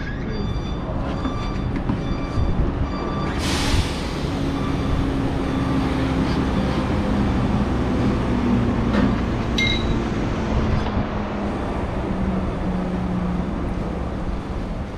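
Steady drone of running machinery in a diesel generator room, with a short burst of hiss about three and a half seconds in.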